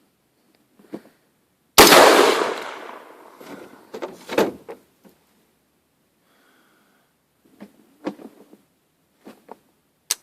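A single shot from an AR-15 rifle, its report ringing out and fading over about a second and a half, followed by scattered metallic clicks and clacks. The rifle is ejecting the case but failing to feed the next round.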